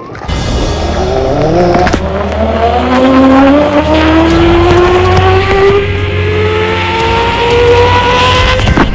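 Zip line trolley's pulley wheels running along the steel cable. The whine starts suddenly at the launch and rises steadily in pitch as the rider gathers speed, over a low rumble.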